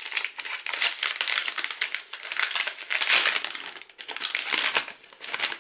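Paper wrapping crinkling and crackling as a bath bomb is unwrapped by hand, with a short pause about four seconds in.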